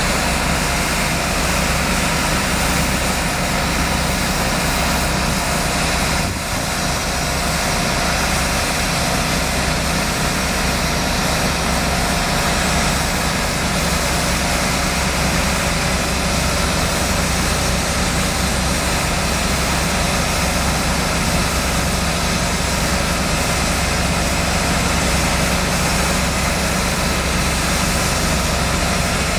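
Railway foundation-setting (drilling) train's heavy machinery running steadily, a loud constant engine hum with a brief dip about six seconds in.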